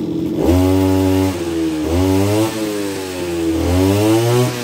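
Mitsubishi TL231 23cc two-stroke brush cutter engine revved hard from idle about half a second in. It then drops back and is blipped up twice more, its pitch rising and falling with each throttle squeeze.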